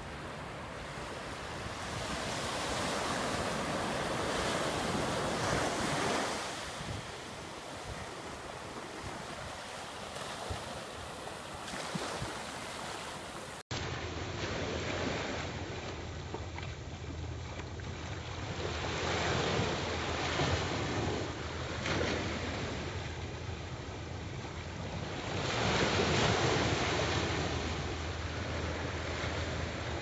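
Small waves lapping and washing onto a sandy shore, swelling and fading every few seconds, with wind on the microphone.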